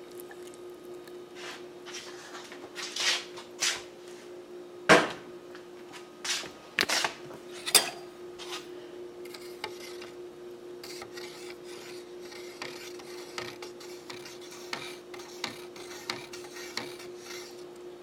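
A spoon and cup clinking and scraping as hot water is added to a cup and stirred. There are several sharp clinks in the first half, then lighter taps, over a steady hum.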